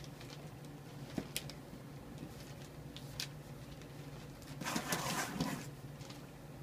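A taped cardboard box being opened by hand: a few light clicks and scratches, then about a second of tearing and rustling about five seconds in, the loudest moment, as the packing tape is pulled off.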